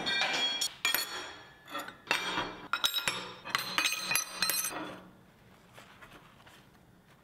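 Steel flat-bar strips being set down and shuffled against each other on a steel welding table: a run of metallic clinks and clanks that ring, stopping about five seconds in.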